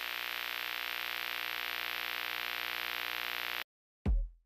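A steady electronic hiss, like static, with a drone of many held tones beneath it and a faint even flutter. It cuts off suddenly about three and a half seconds in. After a brief silence, a short, loud falling whoosh ends in a low thump near the end.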